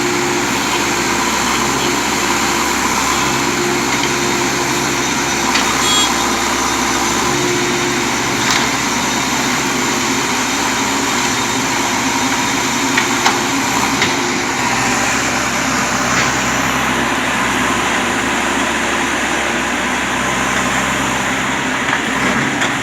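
Heavy diesel engine of a JCB backhoe loader running steadily, with a few brief knocks along the way.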